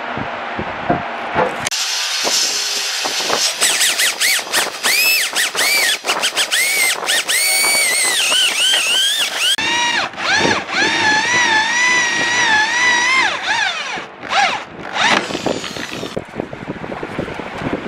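Electric hand drill boring into a block of dry wood. Its motor whine starts about two seconds in and dips in pitch and recovers again and again as the bit bites, then stops near the end.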